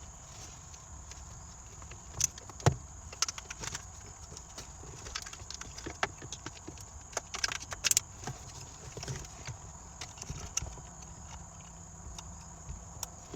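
Scattered clicks, taps and light rattles of a gauge and its 3D-printed plastic mount and bracket being handled and fitted by hand, with a few sharper knocks about two and a half seconds in and again around eight seconds.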